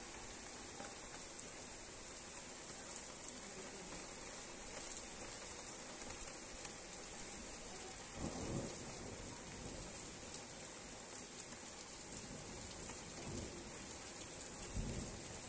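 Steady rain falling, an even hiss. A brief low rumble comes about eight seconds in and again near the end.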